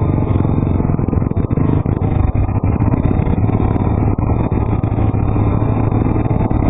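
Honda 400EX quad's single-cylinder four-stroke engine running steadily at low trail speed, heard up close from the machine itself.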